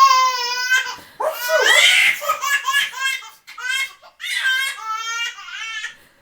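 Baby laughing hysterically: a run of high-pitched belly laughs in several bursts, broken by short catches of breath.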